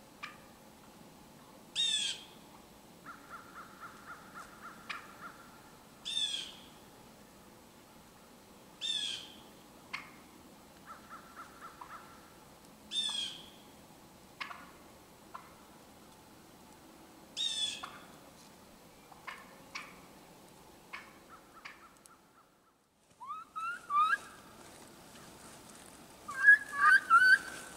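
Wild turkeys calling from a flock. Soft runs of quick clucks and yelps come between five short, sharp, high-pitched calls spaced a few seconds apart, and the loudest burst of calls comes near the end.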